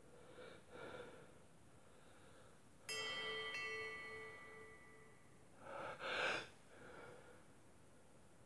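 A person's quick gasping breaths, then a sneeze in two bursts about six seconds in, the loudest sound, followed by a breath. Between them a bright ringing tone with several pitches starts suddenly about three seconds in and fades over about two seconds.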